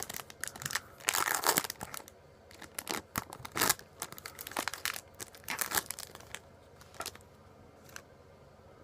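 Trading card booster pack wrapper being torn open and crinkled in the hands: irregular crackling, busiest in the first couple of seconds and again in the middle, thinning out near the end.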